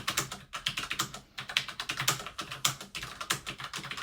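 Fast typing on a Logitech computer keyboard during a typing speed test: a quick, uneven run of key clicks, with a brief pause about a second in.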